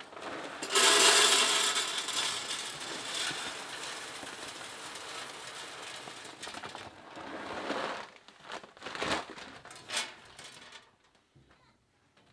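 Championship Blend wood pellets poured from a paper bag into the metal hopper of a Smokey Bandit Lumberjack pellet grill. A loud rush of pellets starts about a second in and thins to a trickle over several seconds, followed by a few short knocks.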